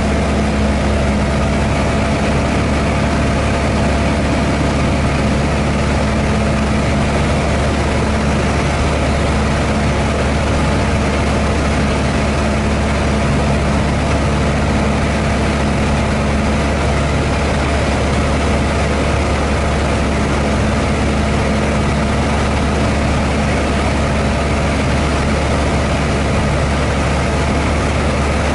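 Light single-engine piston airplane's engine and propeller running steadily in flight, heard inside the cockpit as a constant, unchanging hum.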